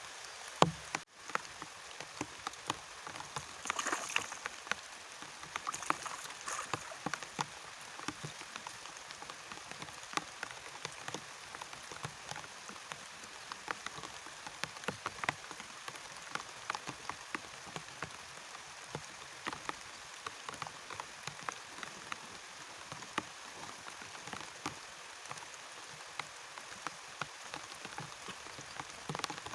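Steady rain, with many separate drops ticking sharply close by, as on a raft's roof. A single loud knock sounds about half a second in.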